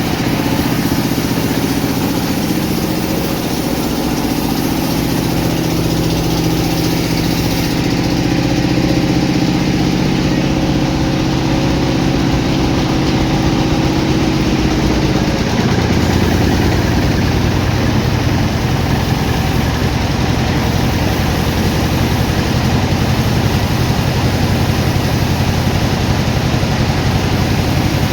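Sawmill machinery running: a steady engine-like drone that changes in sound a little past halfway, its higher tones dropping away and a deeper drone taking over.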